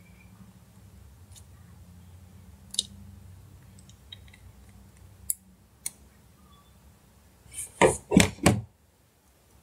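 Faint clicks of small phone parts being handled, over a low hum that stops about five seconds in, then three quick, loud knocks about eight seconds in.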